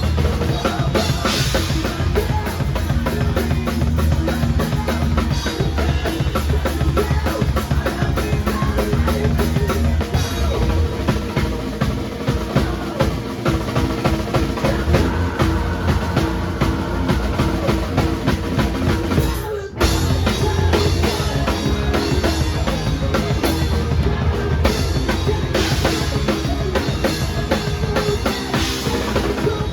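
Drum kit played along with a recorded song, kick drum and snare hits over a strong bass line. Everything stops for a split second about twenty seconds in, then the groove resumes.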